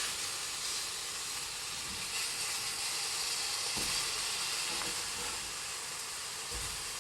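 Hamburger patties frying in a skillet, a steady sizzling hiss.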